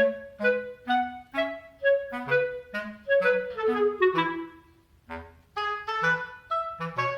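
Background music: a light melody of short, separate notes, each starting sharply and fading, with a brief pause a little past halfway.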